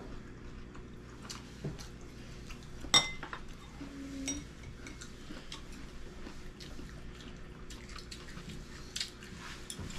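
Chopsticks clicking and clinking against ceramic bowls at a meal, with one sharp ringing clink about three seconds in and a smaller ringing one a second later.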